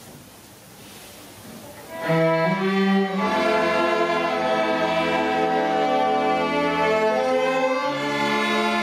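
A student string orchestra of violins, cellos and double basses comes in about two seconds in, after a hush. It plays sustained bowed chords over a low bass line.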